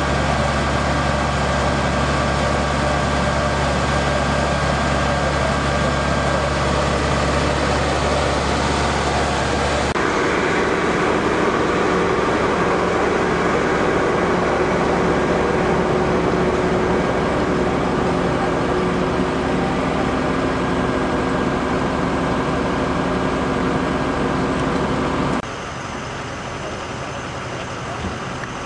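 Engines of emergency vehicles idling at the roadside, a steady loud hum. The hum changes abruptly about ten seconds in, and again near the end, where it gets quieter.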